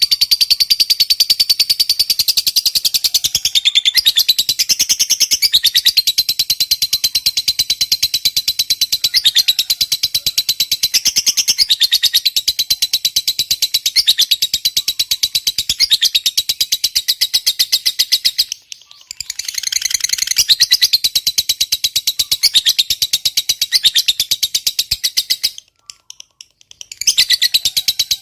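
Lovebird singing 'ngekek panjang': a long, very rapid, shrill chattering trill of many short notes a second, with two brief breaks, about two-thirds of the way in and near the end.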